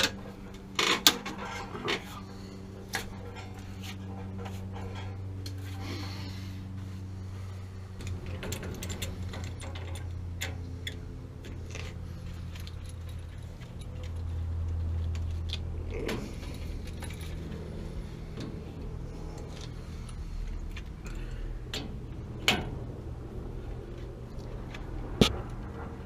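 Scattered metallic clinks and knocks from hands handling metal pipe and fittings around a water heater, over a steady low hum.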